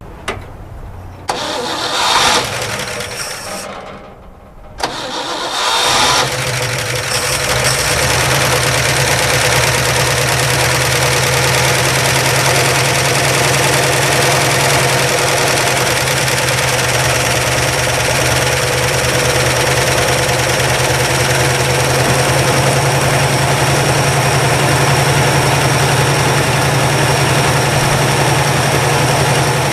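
A 1962 Chevrolet's engine, long unused, is cranked over and catches about five seconds in, then settles into a steady idle. This is the first run on fresh oil, with the oil pressure coming up.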